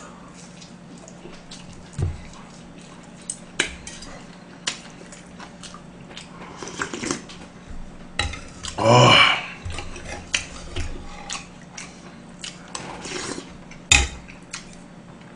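Eating sounds: chopsticks and a metal spoon clicking against dishes and an earthenware soup bowl now and then, with chewing, as gomtang and mung bean pancake are eaten. About nine seconds in comes a louder sound lasting about a second.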